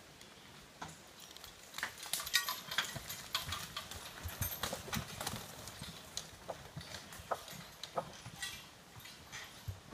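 Draft horses walking: irregular hoof clops and knocks, busiest in the first half and sparser later.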